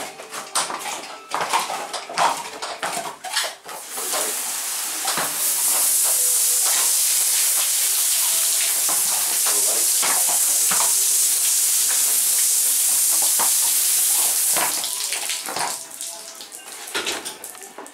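A hose spraying water, a steady hiss that starts about four seconds in and stops about four seconds before the end. It is framed by irregular knocks and clinks.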